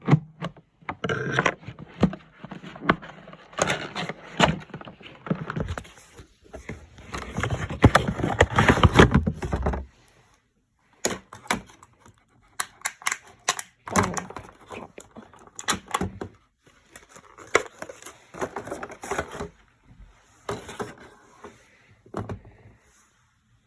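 Hands handling packaging and small plastic figurines: irregular rustling, scraping and a run of clicks and taps, with a longer stretch of dense rustling about eight to ten seconds in.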